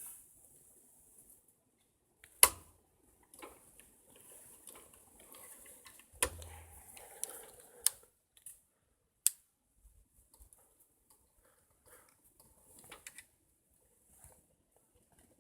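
A few sharp, isolated clicks over faint rustling and hiss, with no engine or horn sounding.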